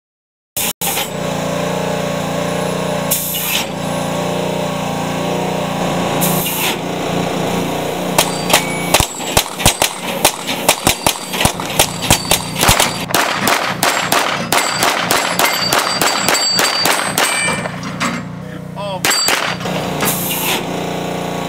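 Rapid gunfire on AR500 steel pop-up targets: a string of sharp cracks and metallic clangs, a few per second, starting about eight seconds in and lasting about ten seconds. Short hissing bursts come a few times before and after.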